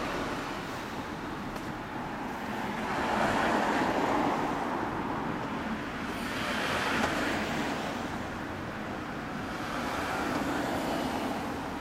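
Road traffic: vehicles passing one after another, each swelling and fading, with the loudest pass about three to four seconds in.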